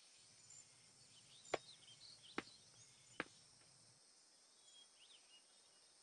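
Near silence with three sharp clicks, about a second apart, and a few faint high chirps.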